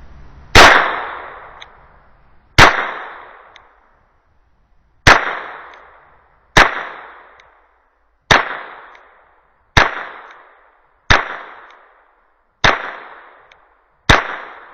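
.22 LR firearm shooting Armscor rounds in slow single fire: nine sharp shots about one to two and a half seconds apart, each with a short trailing echo.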